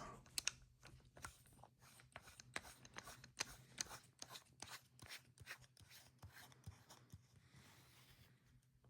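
Faint handling noise: scattered light clicks and rubbing at an irregular pace over a low steady hum.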